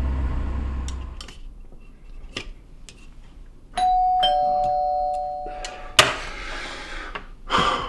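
Two-tone doorbell chime, a "ding-dong" about four seconds in: a higher note, then a lower one half a second later, ringing on for about two seconds. A sharp knock follows just as the chime dies away.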